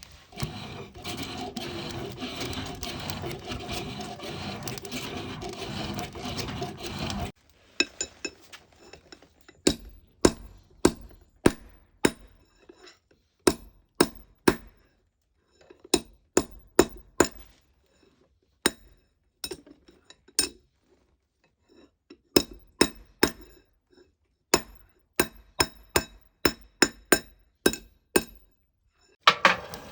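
Hammer blows on a steel bar at the anvil: sharp ringing strikes in runs of several at a time, the iron bar being forged into a hook knife. Before them, for the first seven or so seconds, a steady rushing noise that cuts off suddenly.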